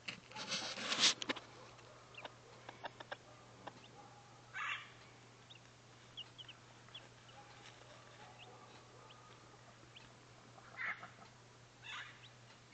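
A hen clucking a few times while her small chicks peep with short, high chirps. A loud rustle comes about half a second in, the loudest sound here.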